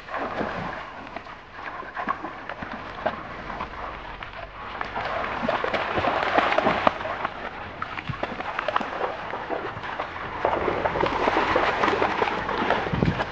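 Dogo Argentinos wading and splashing through a shallow stream, with water sloshing and splashing around their legs. It gets louder from about five seconds in.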